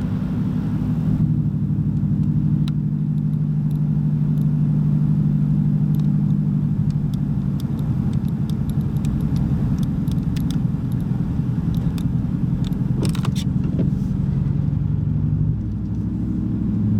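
A vehicle's engine and road noise while driving: a steady low hum that shifts in pitch a few times, with scattered faint clicks.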